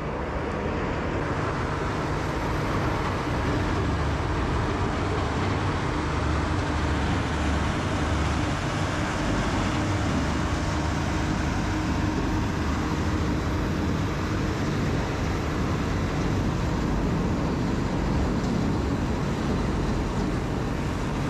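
Heavy diesel equipment running steadily: a Rotochopper horizontal wood grinder and a wheel loader working together. It is a loud, even machine noise with a low engine hum underneath.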